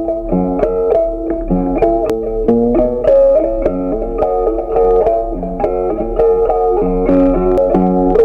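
Background instrumental music: a quick melody of short, evenly spaced notes.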